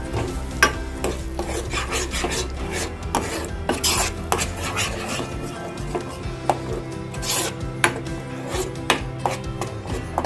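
A metal spoon stirring tomato paste into fried masala in a saucepan, with repeated scrapes and clinks against the pan.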